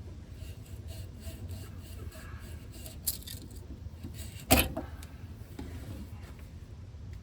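Hand tools and metal parts clinking and scraping during brake-line work under a truck, with one sharp metallic clank about four and a half seconds in.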